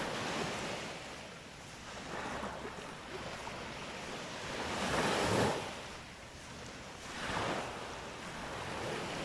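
Sea waves breaking and washing up the beach, in swells that come and go. The loudest wash peaks about five seconds in, and a smaller one follows about two seconds later.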